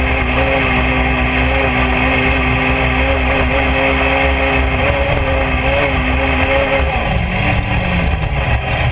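Suzuki GSX-R 750 inline-four motorcycle engine in a golf cart, running at high, steady revs under load while climbing a sand dune. About seven seconds in, the revs fall away to a lower note.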